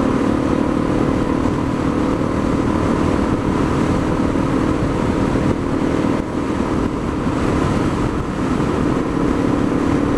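Honda dual-sport motorcycle's single-cylinder four-stroke engine running steadily at cruising speed, with rushing wind on the helmet-camera microphone.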